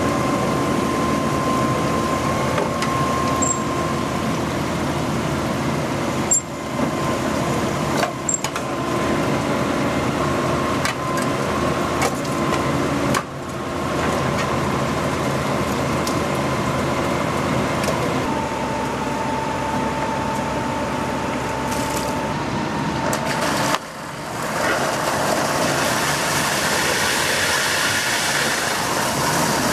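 Engine of a well-drilling rig running steadily while boring vertical geothermal loop holes, with a few brief breaks where the footage is cut.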